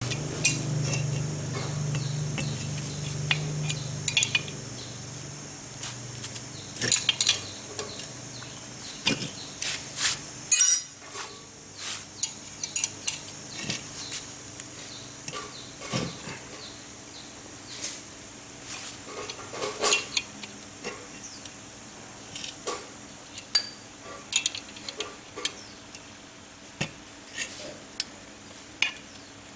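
Irregular metallic clinks and taps of a spanner working the centre nut of the cast-iron belt pulley on an old twin-cylinder air compressor pump. A steady high hiss lies underneath, with a low hum that fades out about nine seconds in.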